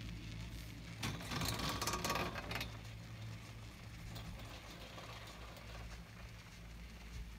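Chairlift ride: a steady low hum with faint wind hiss. About a second in, a louder rustling, crackling burst lasts under two seconds.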